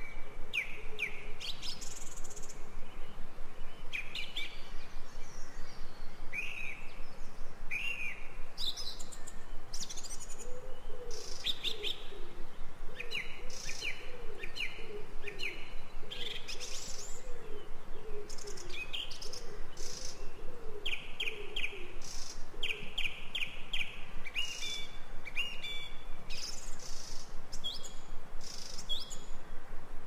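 Mixed wild birdsong: many birds give short high chirps and quick trills throughout. Through the middle a lower voice repeats a run of short falling calls.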